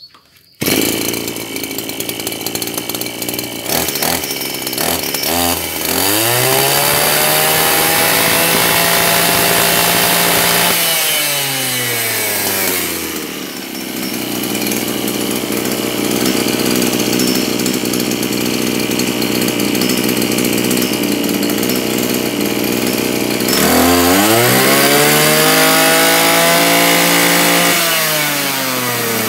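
Maruyama BIG-M KC230RS brush cutter's 23 cc two-stroke engine starting up about half a second in and idling. It is revved up twice, held high for a few seconds each time, and let back down to idle.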